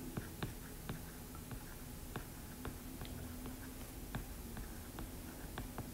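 Faint, irregular tapping and clicking of a stylus writing on a tablet's glass screen, a few light clicks a second, over a low steady hum.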